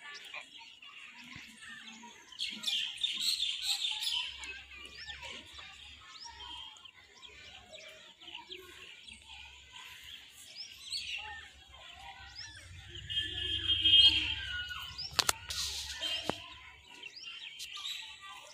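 Birds chirping and singing, busiest a few seconds in and again later when the song peaks, over a faint low hum that comes and goes. Two sharp clicks come near the end.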